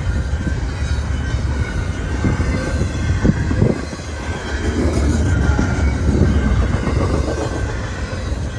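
Double-stack container well cars of a freight train rolling past at speed: a steady low rumble of steel wheels on rail with a faint high ringing, and a couple of heavier knocks about three and a half seconds in.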